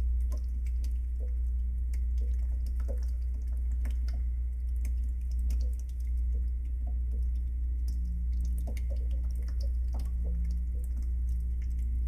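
A thin stream of water trickling from a pipe into a pool of water, with irregular small drips and splashes. A steady low rumble runs underneath.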